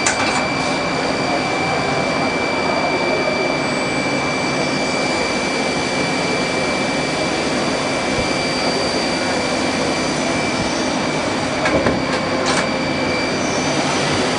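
CNC lathe running, a steady machine noise with a constant high-pitched whine. A few short clicks or knocks come near the end.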